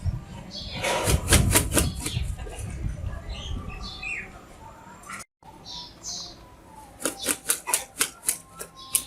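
A bird flapping its wings in two quick runs of strokes, about a second in and again near the end, with a few short high chirps between.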